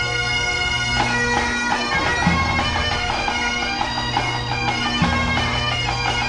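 Pipe band playing: Highland bagpipes sounding a melody over their steady drones, with the bass drum thumping twice.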